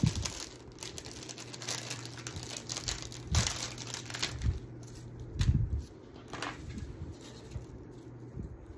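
Craft materials being handled on a work table: crinkling and rustling with a few sharp knocks, the loudest about five and a half seconds in, over a steady low hum.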